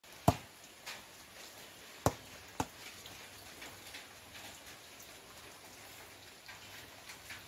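A hand slapping a ball spinning on a fingertip to keep it spinning: four sharp slaps in the first three seconds, then only a steady faint hiss.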